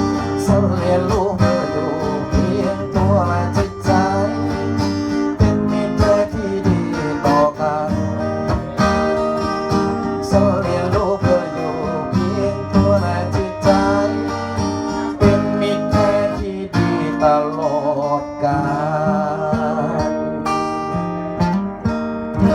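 Song music with guitar: an instrumental passage, strummed and plucked guitar over a steady backing.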